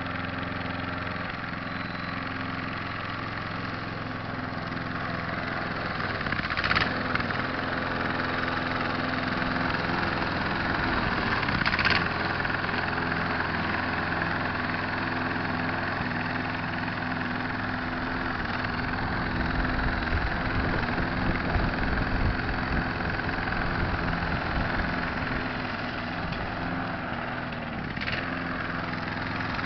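Petrol walk-behind rotary lawn mower engine running steadily while cutting grass, growing a little louder and quieter as the mower moves about.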